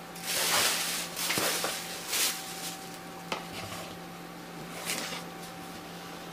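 Plastic bags and wrapping rustling and crinkling as they are pushed aside, in several bursts over the first two seconds or so, followed by a few light knocks on a wooden tabletop.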